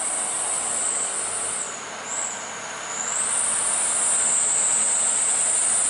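Mitsubishi Fuso tanker truck's diesel engine running as it drives up the road, under a steady high-pitched drone of insects. The sound dips briefly about two seconds in, then swells back and holds.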